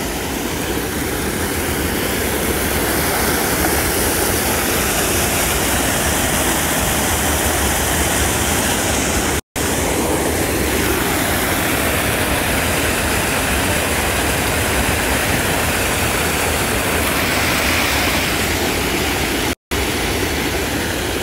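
Canal water pouring over a small concrete weir, a loud steady rushing. The sound cuts out briefly twice, about 9.5 and 19.5 seconds in.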